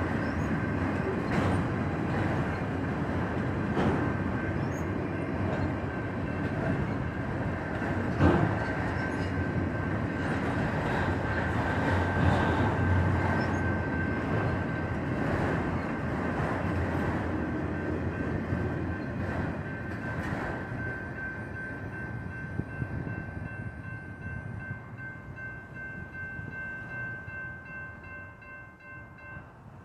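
Empty autorack freight cars rolling past over a grade crossing: a steady rumble with wheel clacks every couple of seconds, fading away over the last ten seconds as the end of the train passes. The crossing's warning bell rings steadily as a constant high tone throughout.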